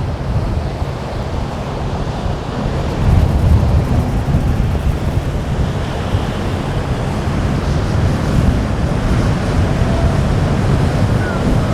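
Strong wind buffeting the microphone over surf at a rough inlet: a steady, loud low rumble that swells about three seconds in.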